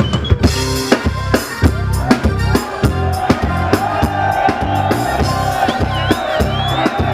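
Live band kicking into a song intro: a drum kit beating steadily with bass drum and snare over a bass line, and a held note joining about three seconds in.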